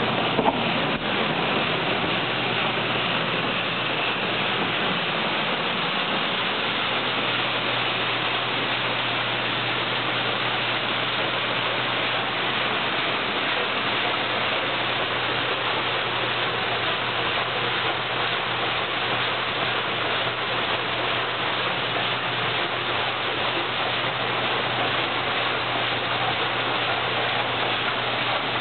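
1925 Meyers grain elevator running on its 3 hp Masters electric motor with beans pouring through it: a steady rushing hiss over an even motor hum, with a brief knock just after the start.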